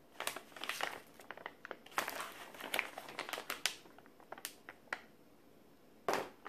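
Clear plastic zip-lock bag holding a set of RC wheels crinkling as it is picked up and handled, in irregular rustles, with a sharper crinkle near the end.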